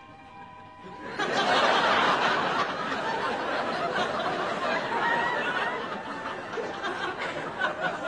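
Soft music, then about a second in an audience starts laughing, a dense laugh that carries on for the rest of the stretch.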